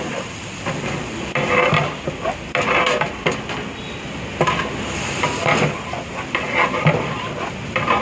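Flat metal ladle scraping and stirring sliced tomatoes and masala in a large metal biryani pot, in repeated strokes about once a second, with the oil sizzling underneath.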